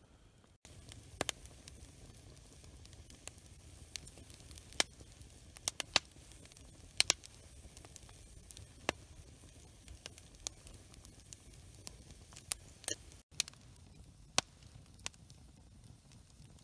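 Wood fire crackling, with irregular sharp pops over a low steady rush.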